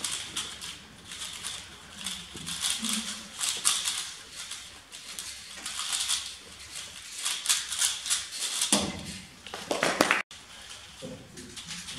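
A 3x3 speed cube being turned fast, its layers rattling and clicking in quick runs. Near the end a louder burst of noise comes as the solve finishes, then the sound cuts off suddenly.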